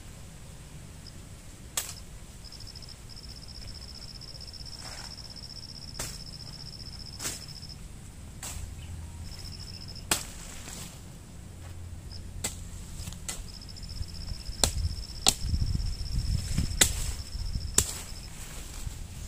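An insect trilling high and steady in long stretches that stop and start, over scattered sharp knocks, about ten of them, that come more often in the second half along with a low rumbling.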